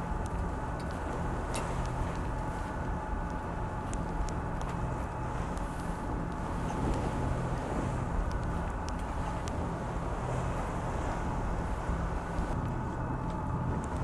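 Steady drone of a sailing ship's diesel engine running under way, with wind noise and a few faint clicks.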